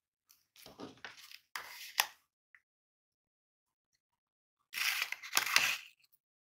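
Crinkling of a Sour Dips lollipop's paper candy-powder packet being handled as the lollipop is dipped into it. The crinkling comes in two bursts of a second or so, one near the start and one about five seconds in, each with a sharp crackle.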